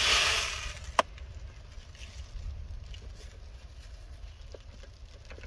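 Coarse single-F black powder pouring from a canister into a plastic jug: a hissing rush of grains that fades over about the first second, then one sharp tap about a second in. A low steady rumble of wind on the microphone runs underneath.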